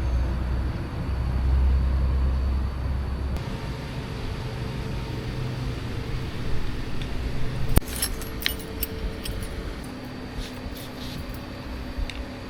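A low rumble for the first few seconds, then light metallic clicks and clinks of small metal parts being handled, bunched about eight seconds in.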